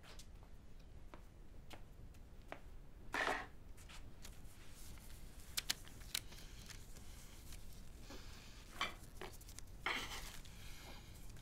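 Hands handling and scraping at objects: scattered rustles and scrapes, a louder one about three seconds in, a few sharp clicks around the middle, and two more rustles near the end.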